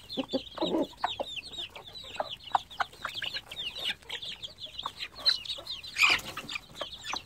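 A brood of chicken chicks and young pheasant chicks peeping constantly, many short falling cheeps, while a hen clucks low about half a second in. A sudden, louder, harsher burst comes about six seconds in.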